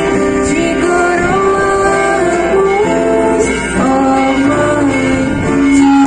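Music: a song sung with instrumental accompaniment, the voice holding long notes that step up and down.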